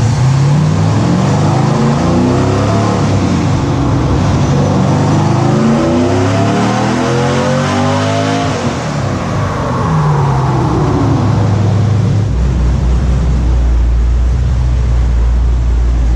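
A sandrail's 6.0-litre LS V8 with LS3 heads making a wide-open-throttle dyno pull. Its revs climb steadily for about eight seconds, then the throttle lifts and the revs fall away, settling into a low steady drone near the end.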